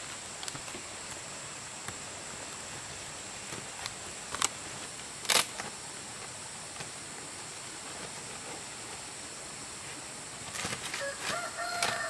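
A few sharp knocks over a steady background hiss, the loudest about five seconds in. Near the end an animal starts a long, held call.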